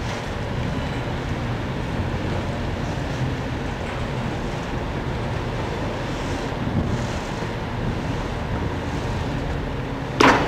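Steady low rumble of the Silver Spade, a Bucyrus-Erie 1950-B stripping shovel, at work, with wind on the microphone. A sudden loud knock comes near the end.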